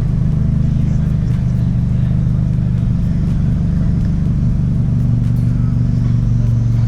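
Dodge Caliber SRT-4's turbocharged four-cylinder engine and loud exhaust running at a steady engine speed, a deep, even hum that holds the same pitch throughout.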